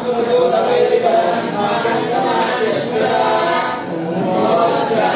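A group of voices chanting together in one continuous recitation, the mantra chanting that goes with a temple abhisheka.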